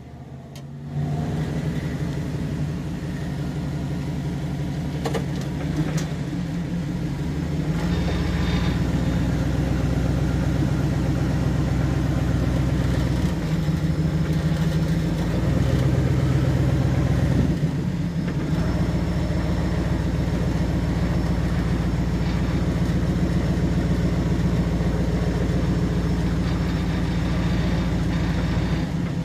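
Vehicle engine running while driving through soft beach sand, heard from inside the cab. It comes in about a second in, gets louder about eight seconds in as the vehicle pulls harder, and its pitch shifts a few times after that.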